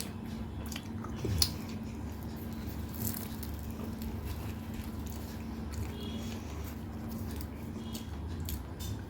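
Close-miked chewing and biting of food, with soft wet squishing and scattered small clicks. One sharp click about a second and a half in is the loudest moment, over a steady low hum that stops about eight seconds in.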